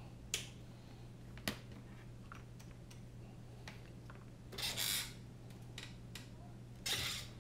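Bench handling noises: two sharp clicks early, a few faint ticks, and two short rustling scrapes about five and seven seconds in as hands handle wires and small parts, over a steady low hum.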